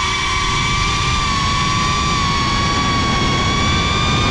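Small FPV quadcopter's brushless motors and propellers whining at a fairly steady pitch, with only slight drifts, over a low rushing noise of prop wash and wind.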